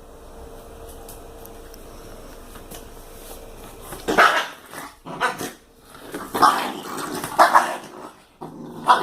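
A dog barking and snarling in loud, sharp bursts about a second apart, starting about halfway in: a dog guarding its bone as a squeegee is pushed at it.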